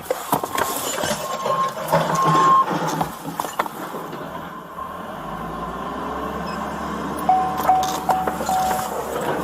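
Vehicle engine running under a clattering, noisy background, with a few short electronic beeps near the start and four quick beeps near the end.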